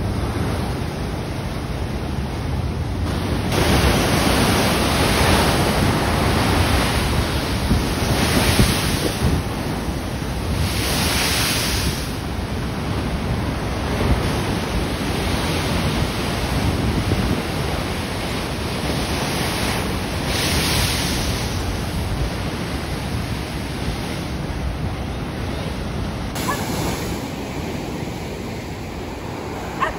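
Rough sea surf breaking against rocks and a concrete seawall, with wind buffeting the microphone. The noise swells several times as bigger waves break.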